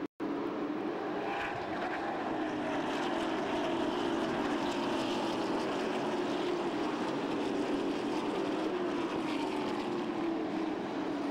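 A pack of stock cars racing at speed around an oval, their engines making a continuous loud drone whose pitch slides slowly as the cars pass and lap.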